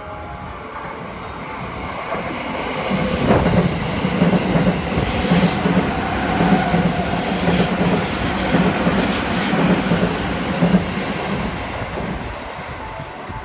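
JR West 207 series electric train passing through a station at speed without stopping. It grows louder as it approaches, then runs past as a loud rush of wheels on rail with a regular clatter over the rail joints for several seconds. It fades as it draws away near the end.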